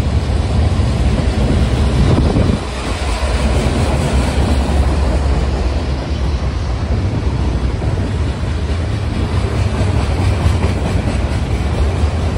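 Freight cars of a CSX manifest train rolling past close by: steel wheels on the rails making a steady low rumble, with a brief dip in loudness about two and a half seconds in.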